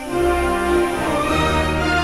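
Orchestral film-score music: sustained string chords over a held low bass note that enters at the start.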